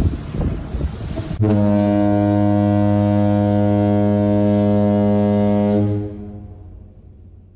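Marine horn sounding one long, steady, low blast of about four and a half seconds, beginning about a second and a half in. It ends sharply and then dies away. Wind on the microphone comes before the blast.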